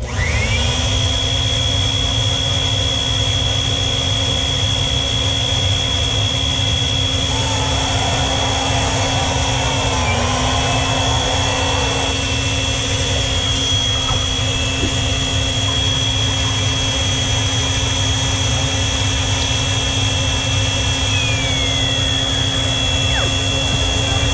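Small handheld electric air blower switched on, its motor spinning up within a second and then running steadily with a high whine over rushing air. It is being used to help force gear oil into a rear differential. The pitch dips briefly about ten seconds in.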